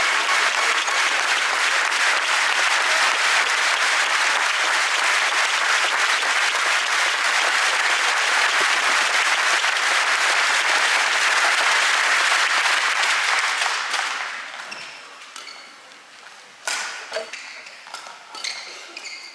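Badminton arena crowd applauding, a dense steady clapping that dies away about fourteen seconds in. A few sharp knocks and scattered claps follow near the end.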